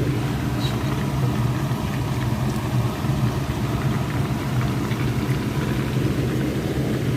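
Steady low hum with faint crackling and scattered small pops above it, typical of a whole chicken deep-frying in hot oil.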